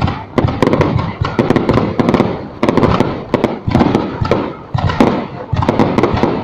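Fireworks going off in a dense, continuous volley: many overlapping bangs and crackles, several each second, with deeper booms among them.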